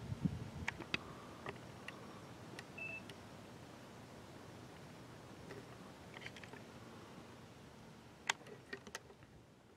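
Quiet outdoor background with no siren sounding: a faint low rumble with scattered ticks and a few short, high chirps.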